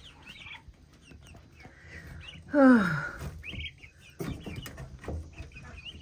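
Young white meat chickens peeping and chirping in short, high calls. About two and a half seconds in comes one louder call that falls in pitch.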